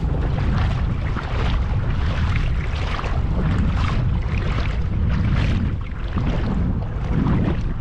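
Strong wind buffeting the microphone: a loud, steady low rumble over a hiss of moving air.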